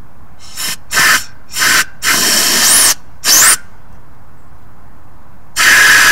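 Compressed-air blowgun fired in about six short hissing blasts into a grease-fitting passage on an old disc plow, two of them with a brief rising whistle. The air goes through the passage and blows old grease out at the top, a sign that the passage is clear.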